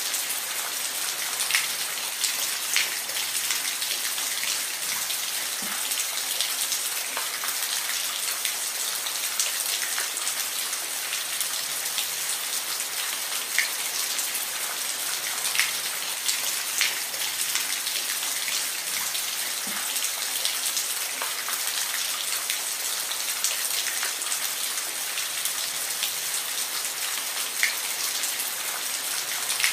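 Steady rain falling, a continuous hiss with many scattered individual drops ticking on a surface.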